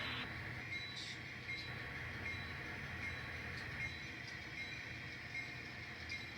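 N scale model train running slowly on the layout's track: a steady low motor hum with faint clicks here and there.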